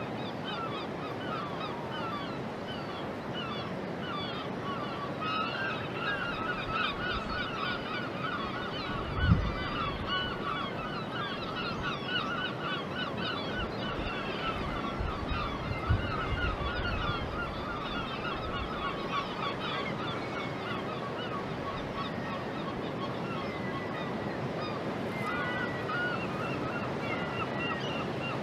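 A dense chorus of many short, honking animal calls, thickest in the middle, over a steady outdoor wash of noise. A dull thump comes about nine seconds in and another around sixteen seconds.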